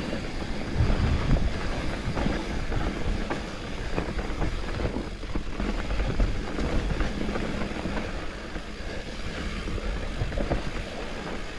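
Electric mountain bike riding over a dirt trail: a steady rumble of tyres on the ground, broken by frequent clicks, knocks and rattles from the bike.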